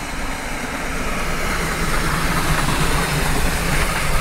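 Steam locomotive hauling a carriage past close by: a steady rumble and hiss that grows a little louder.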